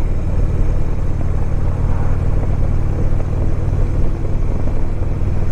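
Harley-Davidson Electra Glide Ultra Limited V-twin running at a steady cruise, with wind and road noise over it.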